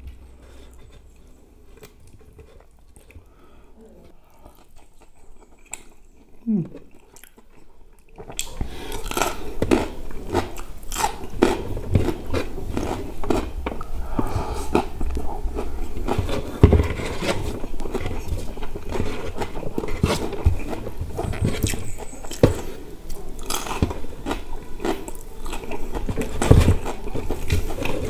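Close-up mouth sounds of someone chewing crispy fried chicken and rice, with wet smacks and crunches. Soft and sparse for the first eight seconds, then suddenly much louder and busier.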